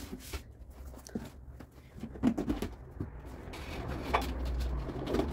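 Household items being handled on a shelf: scattered light knocks and clicks of boxes and plastic being moved and set down, with a stretch of rustling near the end and one sharper knock about four seconds in.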